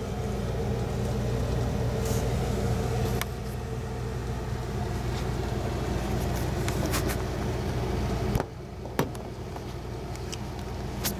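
A steady low mechanical hum, like a running motor or fan, with a few sharp clicks and light knocks over it; the hum drops in level about eight seconds in.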